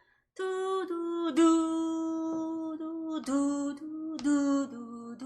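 A slow melodic phrase of long, steady notes, each begun with a short tongued attack. The notes step down in pitch, with new notes about a second and a half in, about three seconds in and near the end.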